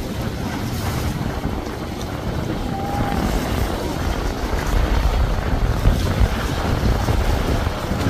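Regal cabin cruiser under power, its motor rumbling as the hull splashes through breaking waves, with heavy wind buffeting on the microphone. The rumble grows louder as the boat runs close by.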